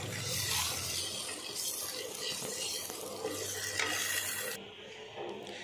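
Whole boiled eggs coated in salt and turmeric sizzling in hot oil in a frying pan, with a wooden spatula scraping across the pan as they are turned. The sizzle turns much quieter about four and a half seconds in.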